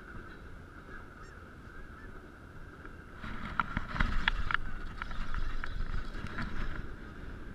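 Muffled knocks, clicks and rubbing of a GoPro camera shifting inside its sealed waterproof housing, over a low rumble and a steady hum. It gets louder, with a cluster of sharp knocks, from about three seconds in.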